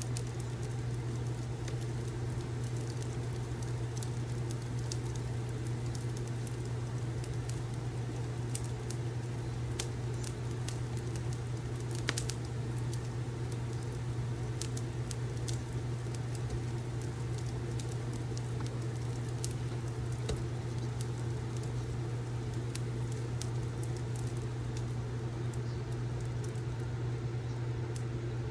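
Fireplace crackling: scattered small pops and snaps, one louder pop about twelve seconds in, over a steady low hum.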